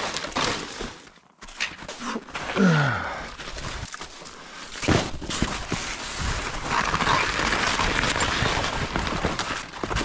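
Skis and a towed pulk sled scraping and crunching over snow, with scattered pole and branch knocks and a short falling grunt about two and a half seconds in; a steadier swishing glide takes over in the second half.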